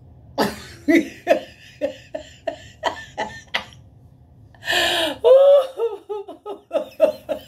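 A woman laughing hard in a long run of short bursts, with a wheezing intake of breath about five seconds in, then more laughter falling in pitch.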